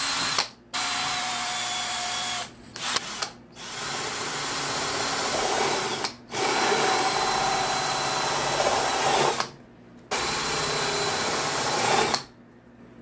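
Hitachi 18V cordless drill running with a steady whine, drilling holes through a thin plate in several runs of one to three seconds with short breaks between them.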